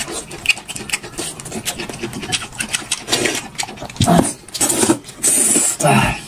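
Noodles being slurped and chewed at close range: rapid wet smacking clicks throughout, with several longer slurps in the second half.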